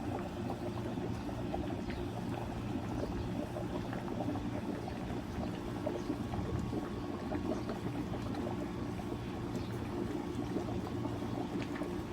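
Crucian carp broth bubbling in an iron cauldron over a wood fire: many small irregular pops and crackles over a steady low hum.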